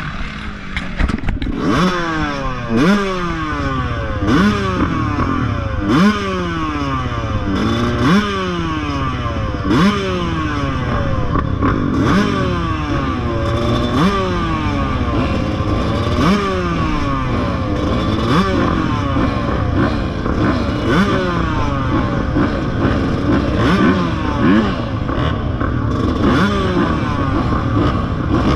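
Dirt bike engine revving hard and easing off over and over, the pitch climbing and falling back roughly every one and a half to two seconds as the bike is ridden around a motocross track.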